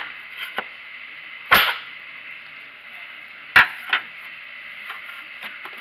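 Spring clips on a Saturn Ion's air filter housing cover being popped open by hand: a series of short sharp snaps and clicks, the loudest about a second and a half in, with two more close together a little past halfway.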